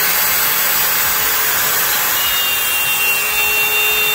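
Plunge router running at full speed, a steady high whine over a dense hiss, as the bit cuts a circular speaker hole in a wooden front baffle. A thin, higher whistle joins about two seconds in.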